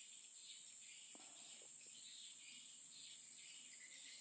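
Faint insect chorus: a steady high drone with pulsing cricket chirps about twice a second.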